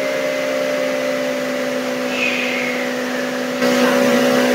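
Steady hiss of noise over a constant low hum and higher steady tones, the kind of static-filled instrumental transcommunication (EVP) recording in which voices are claimed to be heard. A faint wavering whistle comes about two seconds in, and the hiss turns louder and brighter near the end.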